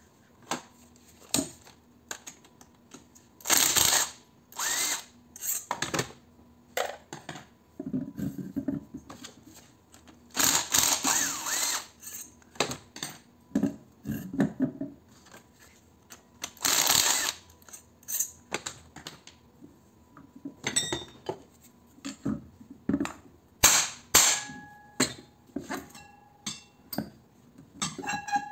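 Metal knocks, clanks and tool handling as an electric fan motor is taken apart on a steel bench, with several short, loud bursts of noise from a tool at work.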